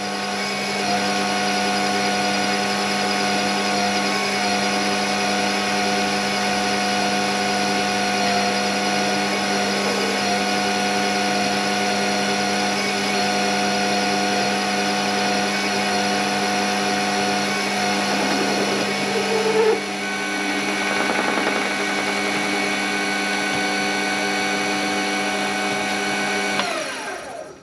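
Warco mini lathe running with a steady machine whine while it takes a finishing cut on aluminium bar stock. About a second before the end the lathe is switched off and the whine falls away in pitch as the chuck spins down.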